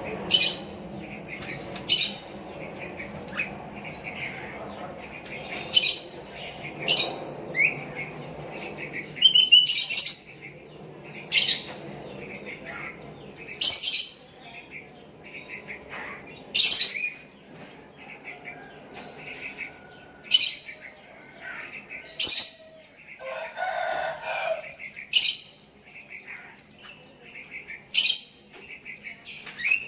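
Sooty-headed bulbuls (kutilang) calling back and forth: short, sharp chirping calls repeated every one to two seconds, one bird answering another.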